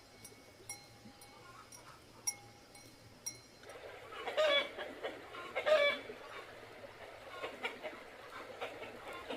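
Chickens clucking, with a few loud calls starting about four seconds in after a quieter stretch of faint clicks.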